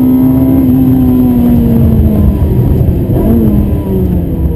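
Ferrari 360 Modena's 3.6-litre V8 heard from inside the cabin, held steady at high revs, then dropping in pitch about two seconds in, with a short rise a second later before falling again.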